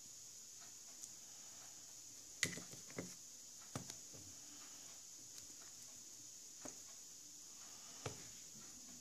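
Faint handling noise from hands working a plastic toy doll and its hair close to the microphone: a few light knocks and taps, the loudest about two and a half seconds in, over a steady hiss.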